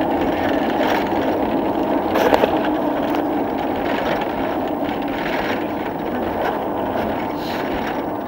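Steady engine and road noise of a moving vehicle, heard from inside the crowded passenger compartment, with a few light knocks and rattles, the sharpest about two seconds in.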